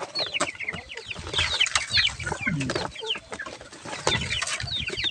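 A flock of young broiler chickens peeping and clucking: many short, high, falling chirps overlapping without a break.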